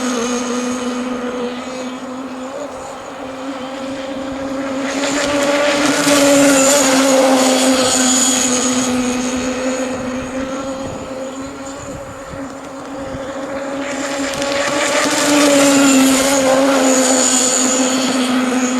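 Zenoah G-25 26cc two-stroke gasoline engine of a remote-control model power boat running flat out, a steady high-pitched buzz. It swells twice as the boat passes close and fades between passes.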